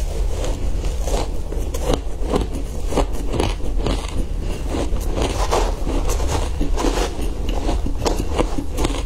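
Close-up chewing of a mouthful of shaved ice: a dense, irregular run of crisp crunches and crackles.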